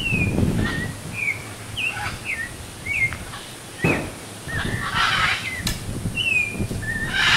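Parrots calling: a quick string of short calls that slide down in pitch, one after another, with a couple of harsher squawks about five seconds in and near the end.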